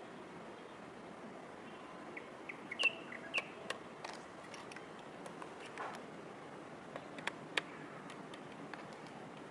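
A few short bird chirps, loudest about three seconds in, over a steady outdoor hiss, with a couple of sharp clicks later on.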